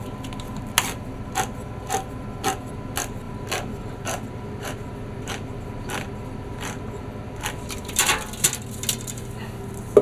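A hand-held manual can opener cuts around the lid of a large metal food can, giving a sharp click about twice a second as the key is turned. Near the end comes a cluster of louder clicks and knocks.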